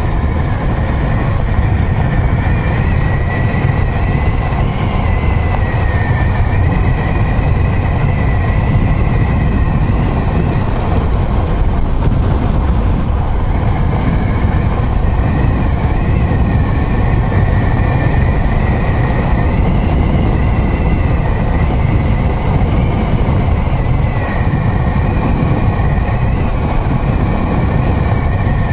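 2016 Honda CB500XA motorcycle's parallel-twin engine running at a steady cruising speed, under a heavy, constant rumble of wind and tyres on a gravel road. A thin whine that wavers slightly in pitch rides on top.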